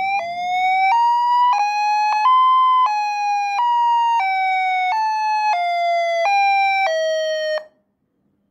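An electronic siren tone played through a homemade two-driver box speaker. It swoops up at the start, then jumps between pitches about every two-thirds of a second, each note sagging slightly, and cuts off suddenly near the end.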